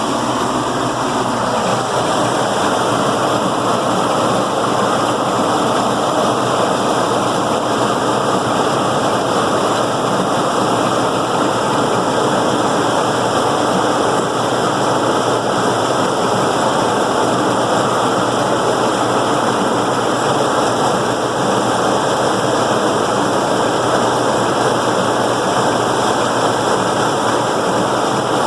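John Deere 6400 tractor and New Idea pull-type corn picker running steadily under load while picking ear corn: a constant dense mechanical rush over the engine's drone.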